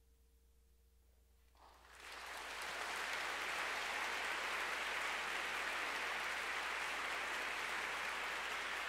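A moment of near silence, then audience applause swells up about two seconds in and holds steady.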